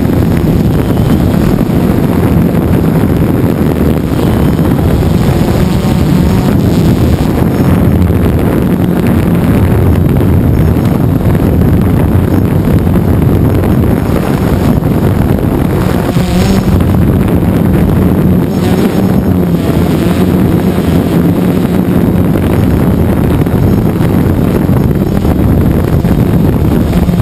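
DJI Phantom 2 quadcopter's four electric motors and propellers buzzing loudly and steadily, heard from the onboard camera, with wind rushing over the microphone.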